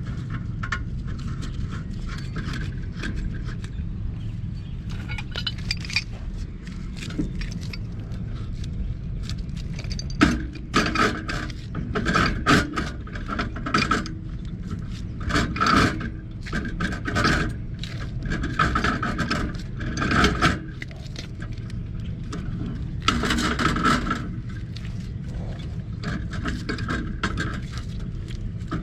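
Threaded galvanized steel gas pipe and fittings being handled and turned: irregular bursts of metal scraping and clinking, busiest from about a third of the way in to near the end, over a steady low background rumble.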